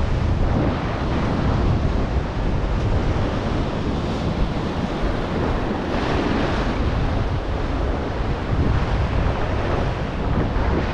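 Sea surf breaking and washing against a rocky shore, swelling louder about four and six seconds in, with wind buffeting the microphone.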